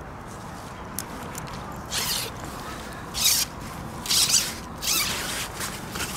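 Carp sling being opened on an unhooking mat: its zip and nylon fabric make four short rustling, zipping sounds, about a second apart.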